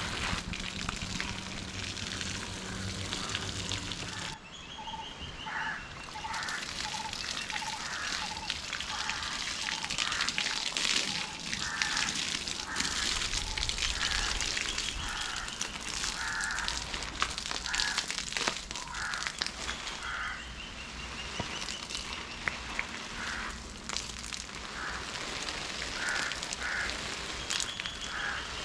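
Water from a garden hose splashing steadily onto plants, soil and tree foliage, while birds call over and over in short repeated notes in the background.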